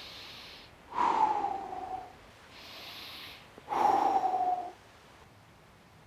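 A man breathing deeply and slowly through an open mouth: two full breaths, each a soft hissing breath in followed by a louder breath out that falls in pitch like a sigh.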